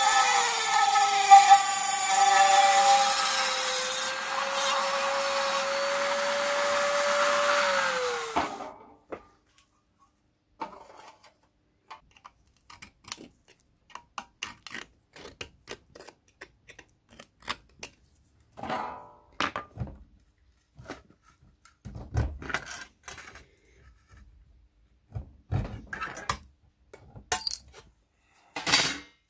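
Handheld rotary tool with a small abrasive cutting disc grinding through rusty sheet steel, its whine sagging in pitch under load, then spinning down about eight seconds in. After that come sparse light scrapes and clicks of hand tools on thin metal, with a few sharp metallic clacks near the end.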